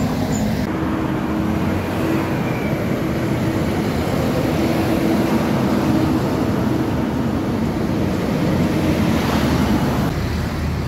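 Road traffic: a diesel dump truck's engine runs with a steady low drone as it approaches, mixed with passing cars and motorbikes.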